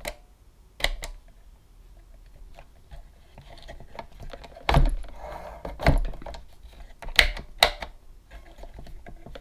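A handful of separate sharp clicks and knocks, the loudest about five seconds in, from handling a Roberts RFM3 portable radio as it is switched on. The radio itself gives out no sound: it is faulty and dead, even with a full battery.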